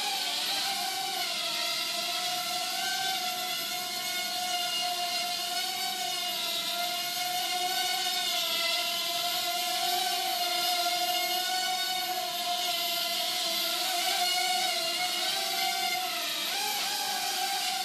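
Hubsan X4 micro quadcopter's four small motors and propellers whining steadily as it hovers. The pitch wavers up and down with the throttle and jumps up briefly near the end.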